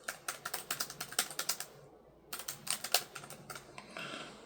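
Typing on a ProtoArc XK01 foldable wireless keyboard: quick runs of keystroke clicks, in two bursts with a short pause about two seconds in.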